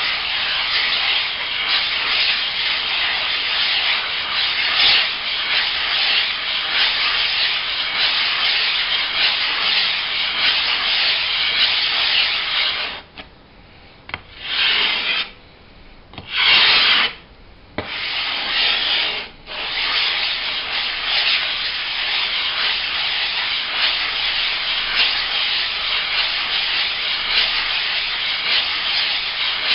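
Combination whetstone being lapped flat on a glass plate with loose silicon carbide grit: a steady gritty scraping as the stone is rubbed back and forth. About halfway through it stops, then comes back as a few short separate strokes before the steady rubbing resumes.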